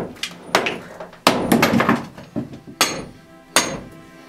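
Steel bar and sledgehammer blows on a stone foundation wall around a cast iron sewer pipe, breaking it out: about six sharp, irregularly spaced metallic strikes.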